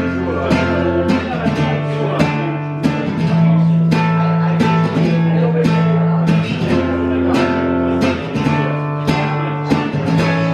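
Acoustic guitar strumming chords after the singing has stopped, with fresh strums every half second or so.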